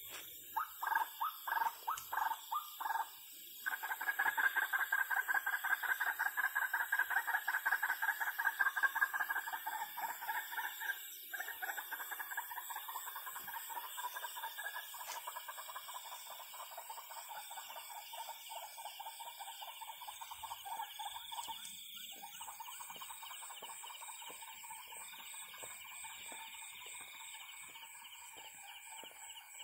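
Rapid pulsed trilling calls from an animal in the night: separate bursts at first, then a continuous trill that is loudest in the first ten seconds and slowly fades. A steady high chirping of insects runs underneath.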